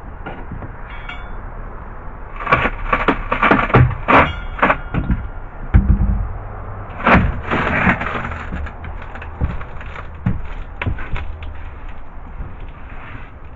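Hammer blows on a chisel and cracking wood as a section of water-damaged plywood boat floor is broken and pried loose. The knocks come in two quick runs, about two and a half and seven seconds in, with a heavy thud between them and a few lighter knocks after.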